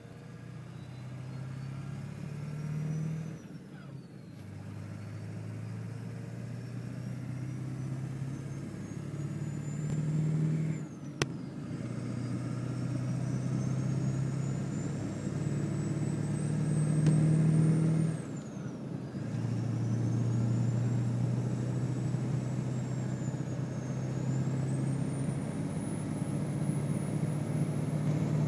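Ford 7.3 L Power Stroke V8 turbodiesel pulling hard through the gears. Its turbo, fitted with an ATS compressor housing and X-wheel, gives a high whistle that climbs steadily with boost. The whistle falls off sharply at each of three gear shifts, where the engine note briefly drops.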